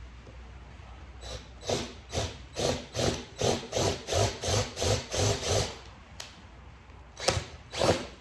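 Power drill with a larger bit run in short pulses, about two a second, then two more bursts near the end, boring a hole through a motorcycle's luggage-compartment lid.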